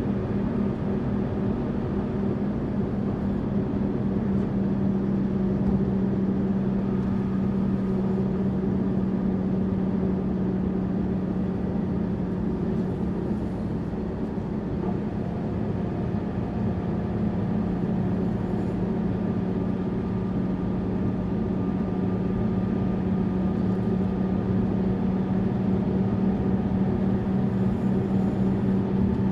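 Tourist bus on the move: the engine's steady drone with a low hum and road noise beneath it, level and unbroken throughout.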